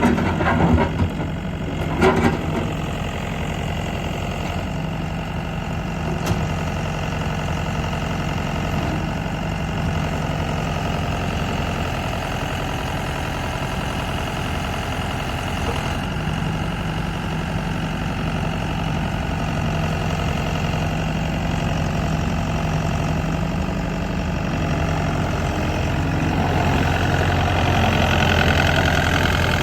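Diesel engine of a Komatsu SK1020-5 skid steer loader running steadily at idle, with a few sharp clatters in the first couple of seconds. The engine gets a little louder near the end.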